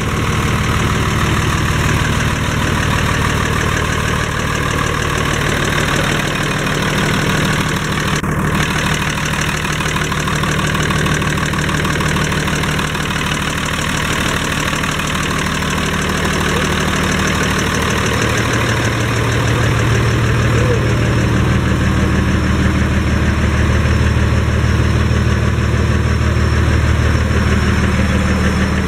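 Air-cooled diesel engine of a Massey Ferguson 1102 tractor (a rebadged Eicher 3105) idling steadily, heard close up. It gets a little louder from about 18 seconds in.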